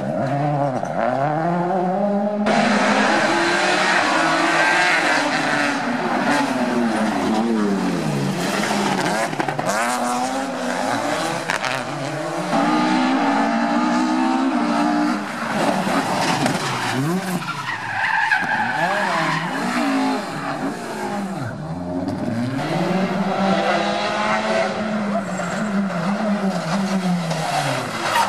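Rally cars at speed one after another, their engines revving hard and falling back at each gear change or lift through the corners, with tyres squealing and skidding on the tarmac.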